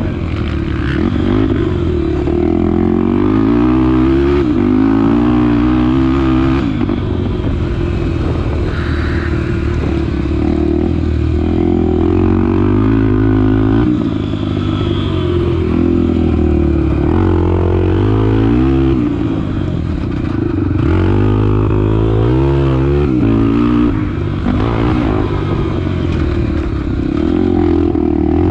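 Honda Tornado 250 single-cylinder four-stroke dirt bike engine being ridden hard, the revs repeatedly rising and dropping as the throttle is opened and closed through a tight track's turns.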